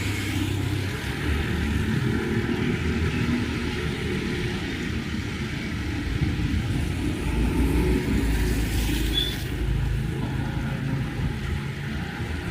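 Strong wind buffeting the microphone in a low, uneven rumble, with a faint hiss of rain above it.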